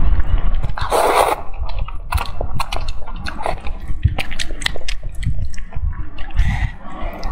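Close-miked wet eating sounds of saucy fried noodles being chewed: many small sticky mouth clicks and smacks over low thumps, with a louder slurp about a second in.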